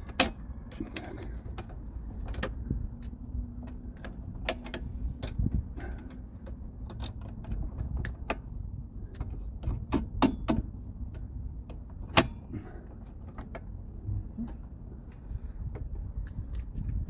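Irregular metallic clicks and clinks of tools and small parts on a rear drum brake, as the shoe hold-down washer and spring come off and the brake shoe is worked loose. A steady low rumble runs underneath.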